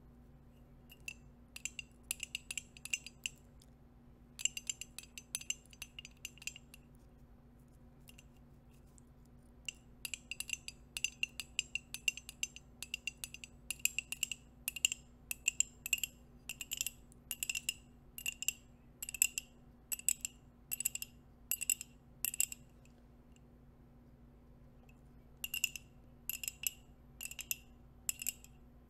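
Pointed nail rings tapping on a mug, a quick clinking run of taps with a bright ring to each one. The taps come in bursts, with short pauses about seven seconds in and again near the end.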